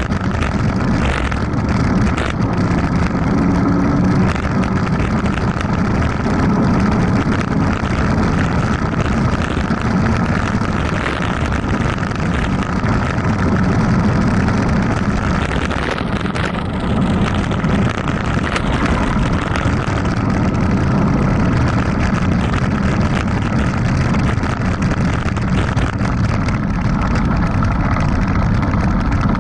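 Steady rush of wind over an action camera's microphone with a mountain bike's tyres rumbling on a dirt road during a fast downhill run, and scattered knocks as the bike rattles over bumps.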